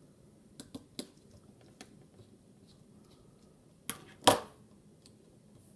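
A few light clicks, then two sharp snaps close together about four seconds in, the second much louder: cutters snipping through the small metal link of a pocket knife's torsion bar.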